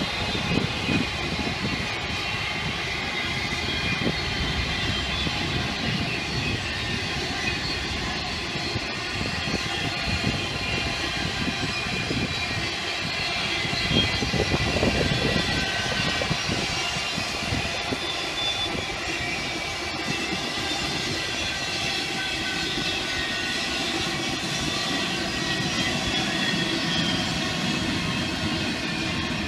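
Norfolk Southern intermodal freight train passing, its locomotives giving way to flatcars loaded with trailers and containers rolling by on the rails with steady, continuous wheel-and-rail noise.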